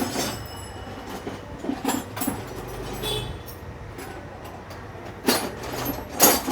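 Metal clinks and knocks of hand tools on a motorcycle during clutch-lever adjustment, over a low rumble of background noise. Two sharper knocks come near the end.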